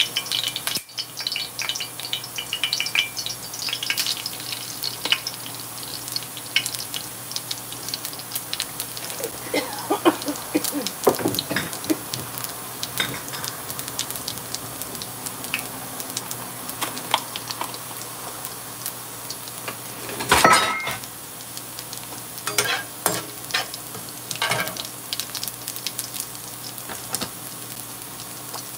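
Hot oil sizzling in a wok as whole spice seeds fry and sputter in it, with many small crackles and pops: spices being tempered in oil. Light pan and utensil clinks, and one louder clatter about two-thirds of the way through.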